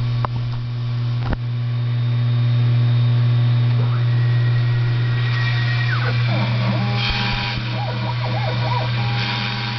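Taig CNC milling machine running a G83 peck-drilling cycle: a steady motor hum under a high stepper-motor whine that drops away about six seconds in, followed by short whines rising and falling again and again as the axis pecks in and out. Two sharp clicks sound in the first second and a half.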